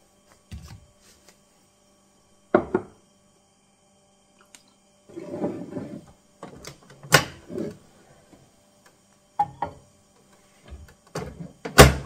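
Handling clicks and knocks of a countertop microwave with a push-button door: a sharp knock a couple of seconds in, rustling and a loud click about seven seconds in as the door is popped open, then a few knocks as a mug goes in, and a loud click near the end as the door latches shut.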